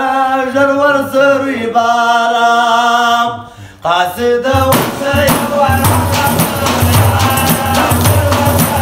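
A man sings a folk song in long, drawn-out notes with no accompaniment. About four and a half seconds in, a frame drum with metal jingles comes in under his voice with a steady, quick beat.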